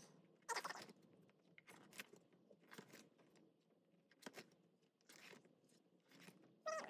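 Faint crinkling and rustling of plastic binder sleeves being handled as binder pages are turned, in short separate bursts with a few sharp clicks.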